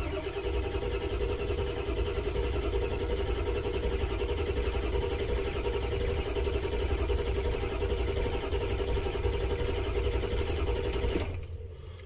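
A 1999 Ford F-250's 7.3 Powerstroke V8 diesel being cranked on its starter without firing, steady for about 11 seconds, then stopping. It is a crank-no-start: injection control pressure builds to about 500 psi, but air in the high-pressure oil system keeps the injectors from firing.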